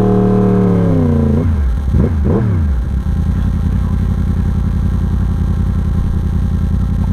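Yamaha R1 motorcycle's crossplane inline-four through an aftermarket exhaust. Its revs are held, then drop away about a second in, followed by two quick throttle blips, after which the engine settles into a low, pulsing rumble at low revs.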